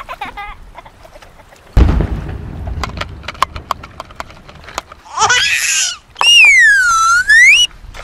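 A sudden thump about two seconds in, then scattered light clicks. Near the end come a short noisy whoosh and a long whistle-like sound effect that falls in pitch and rises again.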